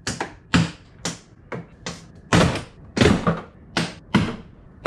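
Plastic snap clips popping loose one after another as the interior door panel of a third-generation Toyota Tacoma Access Cab door is pried off. About nine sharp snaps at uneven spacing, roughly two a second.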